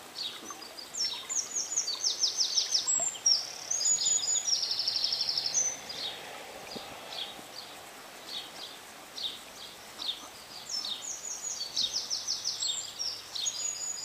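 A songbird singing two long phrases of rapid, high, trilled notes, one in the first half and another starting near the end, over faint outdoor hiss.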